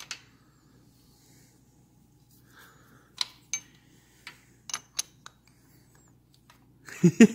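A wrench clinking and tapping against the carburetor mounting nuts and surrounding metal: a handful of short, sharp metallic clicks at uneven intervals, starting about three seconds in.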